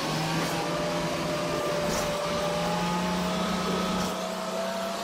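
City bus engine and drivetrain heard from inside the passenger cabin: a steady mechanical hum with a whine whose pitch climbs slowly as the bus drives on. The low rumble under it drops away about four seconds in.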